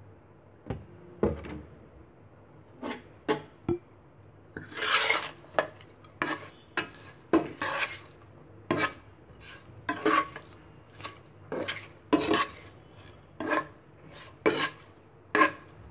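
Stainless steel tongs clicking and scraping against a nonstick pan in irregular strokes, about one or two a second, while tossing raw hilsa fish pieces with oil and spices.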